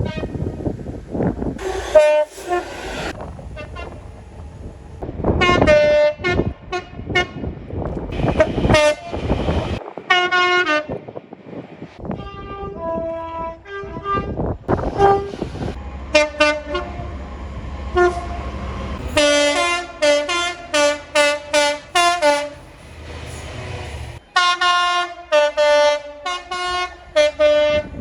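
Train horns sounding many short blasts, with notes of different pitch following one another, over the rumble of trains running.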